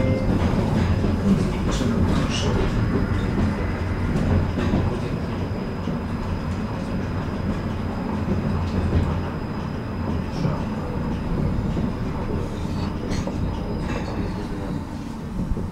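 Tram running along the track, heard from inside the car: a steady low rumble of wheels on rails with scattered clicks and knocks.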